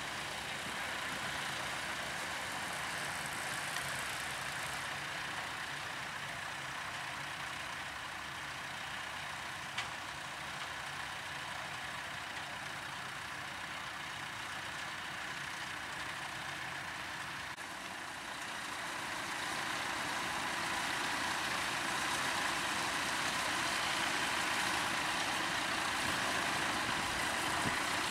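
Vintage tractor engine running steadily under a broad hiss of field machinery, growing louder about two-thirds of the way through, with a single sharp click near the middle.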